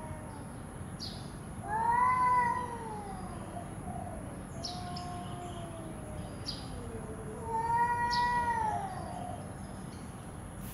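Two domestic cats in a standoff, yowling at each other. Two long, drawn-out yowls rise and then fall in pitch, with a lower moaning yowl between them: cat threat calls before a fight.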